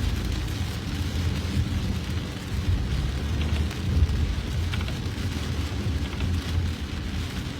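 Heavy rain falling steadily, over a strong, uneven low rumble.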